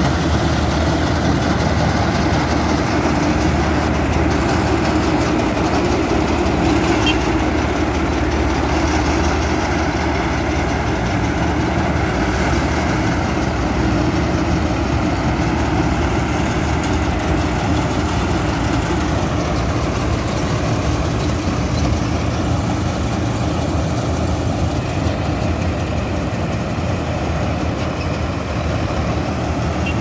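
Swaraj 963FE 4WD tractor-mounted combine harvester at work harvesting paddy: the tractor's 60 hp engine running steadily under load together with the noise of the cutter bar and threshing mechanism.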